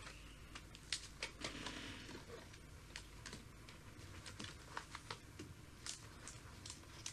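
Pages of a ring-binder photo album being turned by hand: plastic page sleeves rustling and crinkling, with an irregular scatter of faint small clicks and taps.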